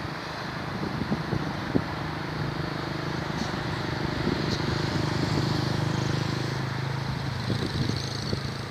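Road traffic from the city below: a steady engine hum from passing vehicles that swells in the middle and fades again near the end.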